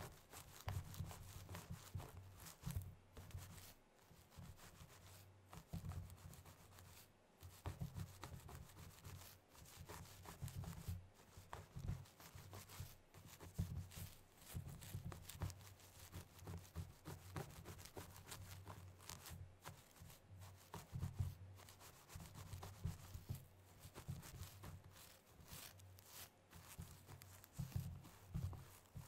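Long acrylic nails scratching and rubbing quickly through the hair of a mannequin head, close to the microphone. The strokes are fast and irregular, with soft low bumps as the hands press on the head.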